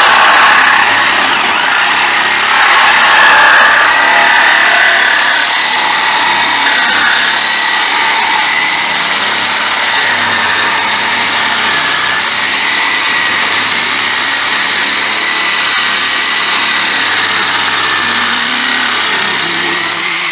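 Cordless reciprocating saw with a 9-inch medium-metal blade running at full speed while it cuts through a Jeep Liberty's body metal. It gives a steady, loud, high-pitched buzzing whine that wavers slightly in pitch.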